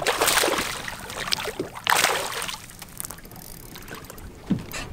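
A hooked fish splashing and thrashing at the water's surface, with two loud splashes: one at the start and one about two seconds in.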